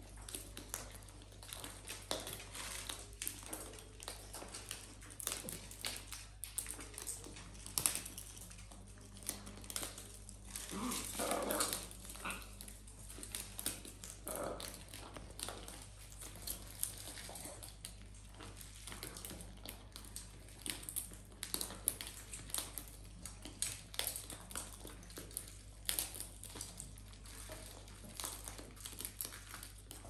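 Macaws and a cockatoo feeding from a metal seed tray: a steady scatter of small clicks and crackles from beaks cracking seed and pecking at the tray. A brief whine sounds about eleven seconds in.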